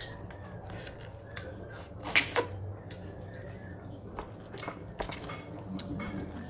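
Wet chewing and lip-smacking of a person eating rice and fish curry by hand, with the soft squish of fingers mixing rice on a plate. Two sharper clicks stand out a little over two seconds in, over a steady low hum.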